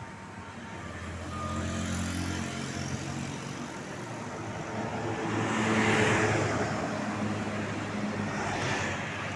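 Road traffic passing close by. An engine's low hum builds over the first few seconds, the loudest vehicle rushes past about six seconds in, and another goes by near the end.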